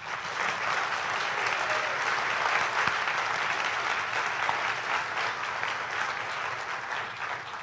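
Audience applauding steadily, then tapering off near the end.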